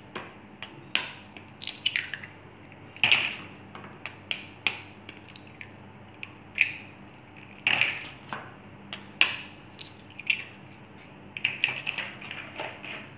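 Raw eggs being cracked against a glass bowl and broken open by hand: an irregular run of sharp taps and shell cracks, some in quick clusters.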